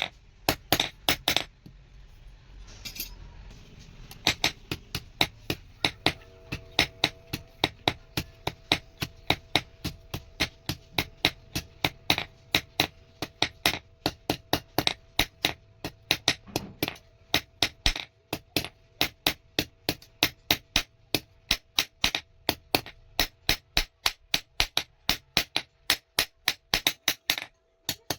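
A hammer striking steel on an anvil in a quick, steady run of about three blows a second, with a short break about two seconds in and another near the end. A steady ringing tone hangs under the blows from about six seconds in.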